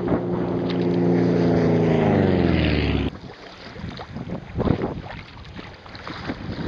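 Low-flying airplane's engine droning overhead, its pitch falling as it passes, cutting off suddenly about three seconds in. After that, wind on the microphone and choppy water lapping, with a few splashes.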